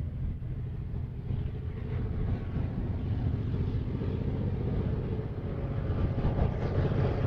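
Heritage diesel locomotive engine rumbling, growing steadily louder as the train approaches.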